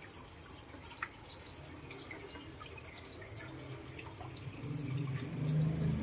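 A moustached parakeet bathing in a stainless-steel pot of water: small splashes and drips as it dips into the water. A low hum grows over the last second or two.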